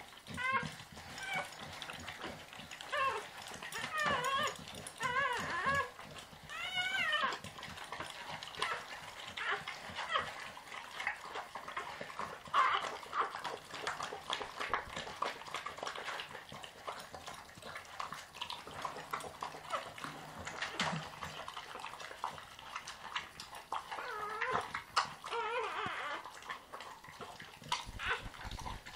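Newborn puppy squealing in short, rising-and-falling cries, in bursts early on and again near the end, while the mother dog licks it with wet, clicking licks.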